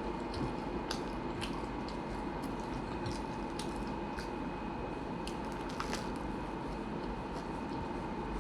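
Close-miked eating sounds: scattered soft clicks and smacks of chewing over a steady background hum.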